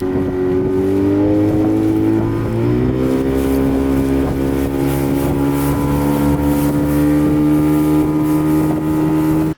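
Boat's outboard motor running under way at high throttle, its pitch rising a little about three seconds in and then holding steady.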